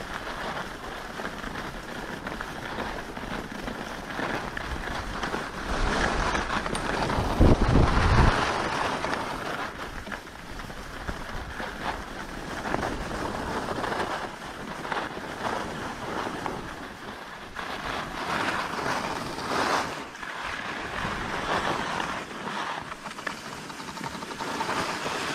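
Skis hissing and scraping over packed piste snow during a downhill run, with wind rushing over the microphone. A heavy low wind buffet is loudest about seven to eight seconds in.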